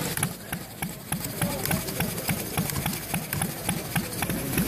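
Scale-model stationary gas engine with twin flywheels running, a regular exhaust beat about four times a second with light mechanical clicking from its valve gear.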